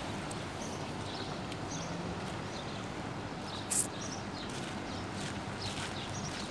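Small birds chirping in short, repeated calls over a steady outdoor background hum, with the footsteps of someone walking on pavement. A brief sharp noise stands out just under four seconds in.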